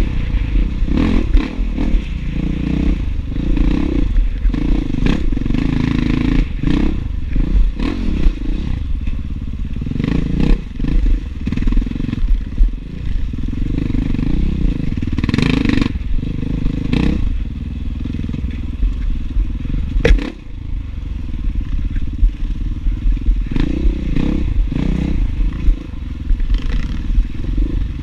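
Enduro dirt bike engine revving up and down as the bike is ridden over rough ground, picked up by an onboard camera, with frequent knocks and clatter from the bike and one sharp crack about twenty seconds in.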